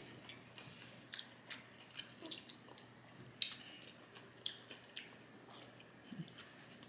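Faint eating sounds: chewing with scattered small clicks and smacks of mouths and cutlery against the food containers.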